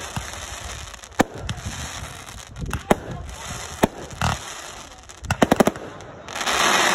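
Consumer fireworks going off: sharp single bangs of bursting shells every second or so, then a quick string of about six cracks about five seconds in. A loud rushing hiss builds near the end.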